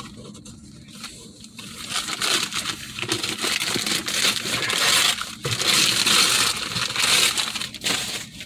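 Christmas wrapping paper being torn and crumpled off a cardboard box. The tearing is light at first and grows into several seconds of steady, loud crinkling from about two seconds in.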